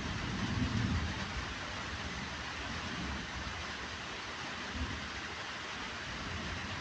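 Steady background hiss, with soft low thumps in the first second.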